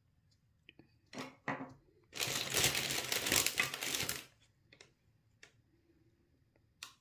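Plastic toy packaging crinkling and tearing for about two seconds, after two short rustles, followed by a few light clicks of small plastic pieces being handled.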